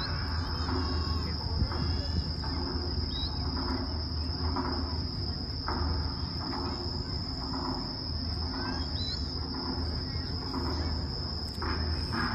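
Crickets chirring in a steady, high-pitched drone, over a low rumble and a faint murmur from the watching crowd.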